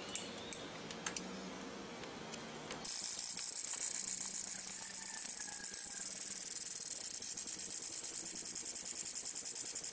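A few sharp clicks, then, starting abruptly about three seconds in, a loud, high-pitched insect trill pulsing rapidly and evenly.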